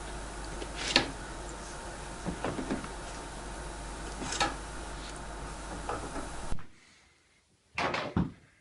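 Handling knocks and scrapes of a cardboard sleeve and plastic carry case being taken off and turned over, with a sharp knock about a second in and a few more after. A steady background hiss cuts off abruptly about six and a half seconds in, followed by a last short rattle of handling.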